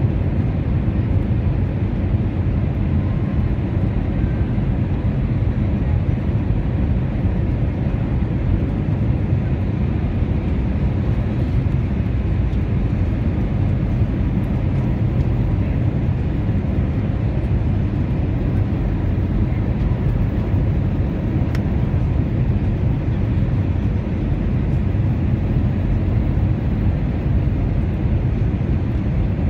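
Steady cabin noise inside an Airbus A320 airliner in flight: a deep, even rush of engines and airflow that does not change.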